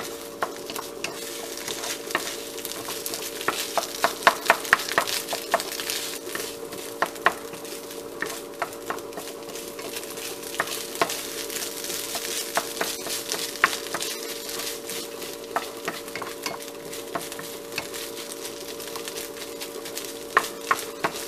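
Ground pork filling frying in a nonstick pan, sizzling while a wooden spatula stirs it, with frequent taps and scrapes of the spatula against the pan. A steady hum runs underneath.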